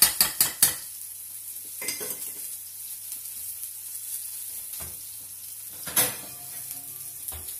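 Cherry tomatoes sizzling in a frying pan on a gas hob, a steady hiss throughout. In the first second a metal spoon knocks several times in quick succession against a stainless saucepan of rice, and about six seconds in there is one loud clunk as the oven is opened.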